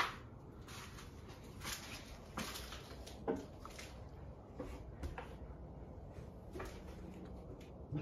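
Harbor Breeze Centreville ceiling fan running with a steady low whoosh of moving air. About ten short, sharp sounds come unevenly over it.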